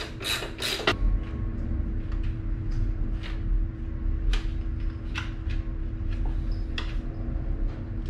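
Hand tools and metal parts being worked on a motorcycle's rear fender: a few quick scraping strokes from a screwdriver in the first second, then scattered light metallic clicks and taps as mounting plates are fitted. A steady low rumble runs underneath.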